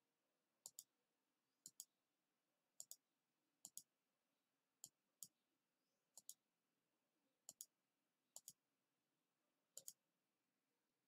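Computer mouse clicking about nine times, each a quick pair of clicks, at roughly one a second, over near silence.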